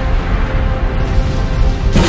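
Background music with a heavy bass and sustained tones; it turns suddenly brighter and fuller right at the end.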